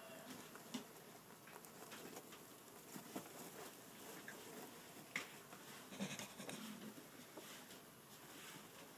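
Dwarf rats scrabbling at and rustling a paper towel: faint scratching and light pattering, with a few sharper clicks scattered through.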